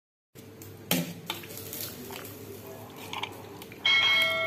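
A serving ladle knocks twice against the pot as okra pulimunchi gravy is ladled into a plastic bowl, over a low steady hum. Near the end a bright bell-like chime rings out and fades, the ding of a subscribe-button animation.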